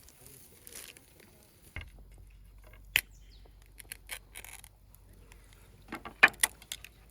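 Cooking utensils clicking and tapping while food is grilled: scattered sharp clicks, one loud one about three seconds in and a quick cluster around six seconds. A faint low hum starts about two seconds in.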